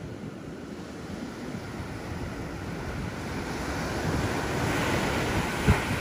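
Ocean surf washing and breaking on a beach, swelling louder in the second half, with wind buffeting the microphone. A short thump near the end.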